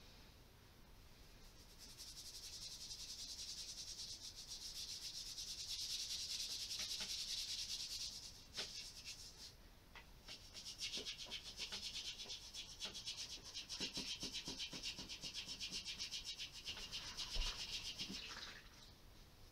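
A scrubbing pad rubbed briskly back and forth over the body of an antique wooden plough plane, giving a rapid scratchy hiss. It starts a couple of seconds in, pauses briefly about halfway, runs on, and stops near the end, with a single bump shortly before it stops.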